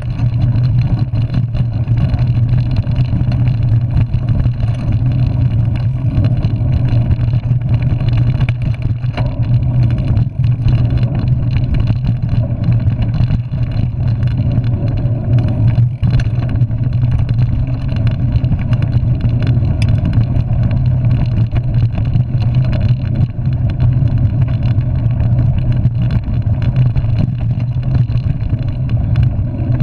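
Steady loud rumble of a mountain bike rolling over a dirt trail, picked up by a camera mounted on the handlebars: wind, tyre and trail noise on the mic.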